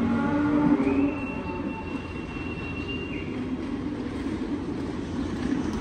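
A cow mooing, the call dying away about a second in, over a steady low rumble; a thin, high, steady whine holds for about two seconds after the call.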